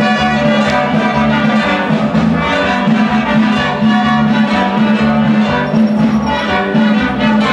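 A band playing carnival dance music, loud and continuous, with a low note held steadily underneath.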